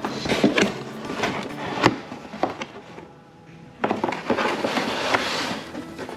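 Cardboard and plastic packaging being handled: irregular rustling and crinkling with sharp knocks and clicks, easing off briefly about three seconds in.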